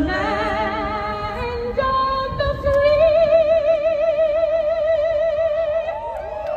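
A woman singing solo in an operatic style: a few shorter notes, then one long note held with wide vibrato from about two and a half seconds in.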